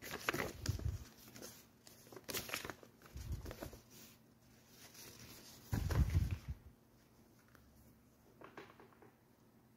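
Paper leaflets rustling and crinkling as they are unfolded and handled, in irregular bursts, with a louder handling bump about six seconds in.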